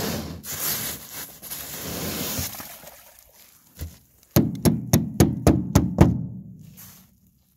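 Ice and snow being scraped along an aluminum boat deck with a hand tool, then a quick run of about seven sharp strikes that ring on the aluminum as frozen spray is chipped off.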